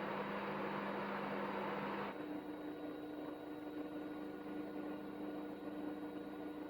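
Haier HW80-B14979 front-loading washing machine spinning at 1000 rpm, a steady motor hum over the rush of the drum, quiet and smooth running. About two seconds in, the rushing drops away and the hum steps up to a higher steady tone.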